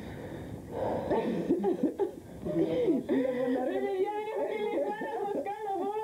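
A woman crying: breathy, gasping sobs, then from about halfway a long, wavering, unbroken whimper.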